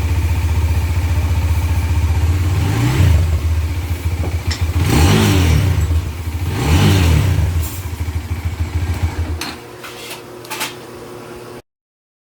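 Bajaj Dominar 400's single-cylinder engine idling, then blipped at half throttle three times, each rev rising and falling back to idle. Near the end the engine sound drops away and then cuts off suddenly.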